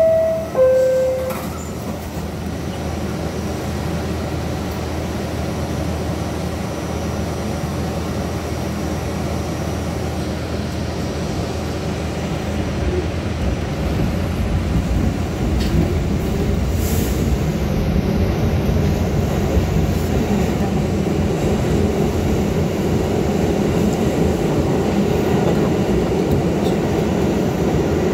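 Ride noise inside an R68A subway car running through the tunnel: a steady rumble of wheels on rail, growing louder about halfway through as an R46 train runs alongside on the adjacent track. Two short falling tones sound right at the start.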